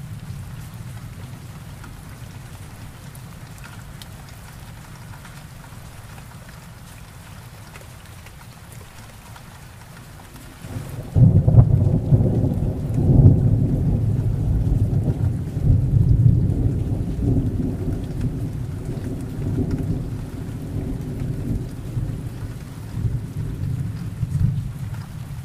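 Heavy rain falling steadily. About halfway through, a loud rumble of thunder breaks in suddenly and rolls on, swelling a few times and slowly dying away.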